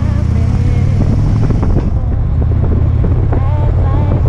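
Harley-Davidson Ultra Limited's V-twin engine running steadily at road speed with a deep, loud rumble, mixed with wind noise on the bike-mounted microphone.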